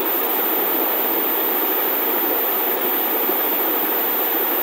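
Steady, even hiss of background noise with no distinct events: a constant noise floor under the narration.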